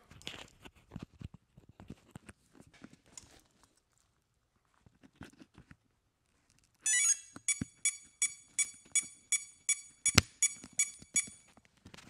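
XT90S anti-spark connector being pushed together to power an RC helicopter's electronics, with faint handling clicks and no spark crack. About seven seconds in the electronics power up with a short rising chirp, followed by about a dozen short, evenly spaced beeps, roughly three a second, with a single click among them.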